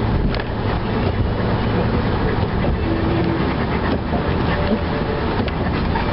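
Snowplow truck running while plowing snow: a steady, loud rumble and rattle, with a couple of short whines partway through.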